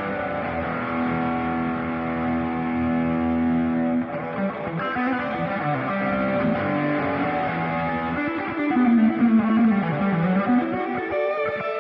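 Electric guitar played through a Ring Boost Ranger 'RMB' booster pedal: a chord held ringing for about four seconds, then single-note lines with bent, gliding notes.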